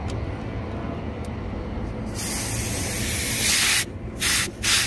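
R-22 refrigerant hissing out of a charging hose as the line is purged at the manifold fitting: a continuous hiss of about a second and a half starting two seconds in, then a couple of short spurts near the end, over a steady low rumble.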